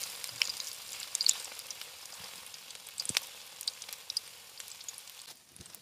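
Battered potato fritters (aloo chop) deep-frying in hot oil in a kadai: a steady sizzle with scattered small crackles and pops, gradually quieter, and one sharper click about three seconds in.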